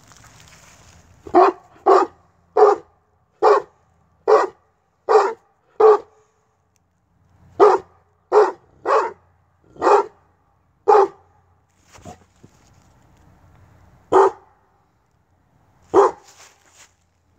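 A Tosa Inu barking at a person whose face and head are covered: a run of seven barks, a short pause, a run of five, then a couple of single barks. This is alert barking at someone the dog does not recognise.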